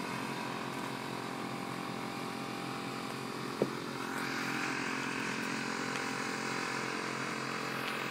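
A steady mechanical drone with a single sharp click a little over three and a half seconds in; a hissing rush grows louder about four seconds in.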